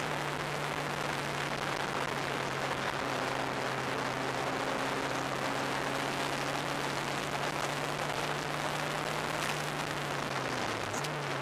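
Heavy wind rush over an open-cockpit track car at speed, with the car's engine note holding steady underneath. Near the end the engine pitch dips and then briefly rises.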